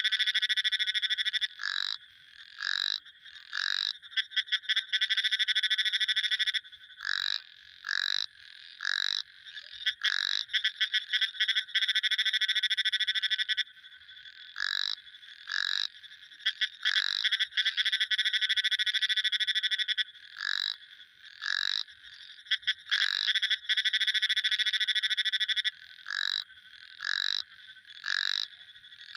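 Frogs calling in a high-pitched chorus. Long rapid trills, each lasting two to three seconds, alternate with short single calls that drop in pitch at the end.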